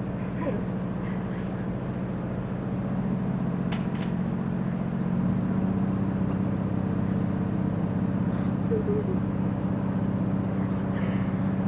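Steady running noise of a train heard from inside the carriage: a constant hum with a low steady tone, growing louder a few seconds in. There is a brief sharp noise about four seconds in.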